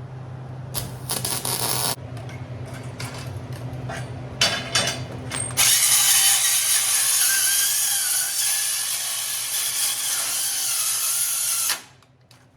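Power grinder with a cutoff blade cutting metal: a few short bursts of contact, then one long cut of about six seconds with the motor's pitch wavering under load, ending abruptly near the end.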